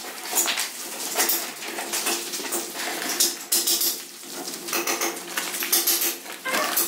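Paper cement sack rustling and crackling in quick irregular bursts as it is shaken out to scatter dry cement powder.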